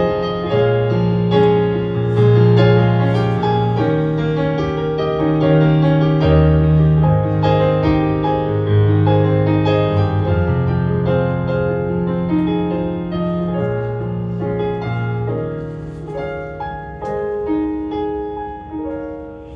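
Yamaha digital piano played as the instrumental introduction to a slow Mandarin ballad: held bass notes under chords and a melody, growing softer near the end.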